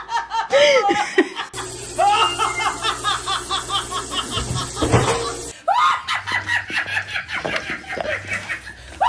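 A woman laughing hard and without a break, in quick repeated 'ha' pulses of several a second. It keeps going through two abrupt changes in the background sound.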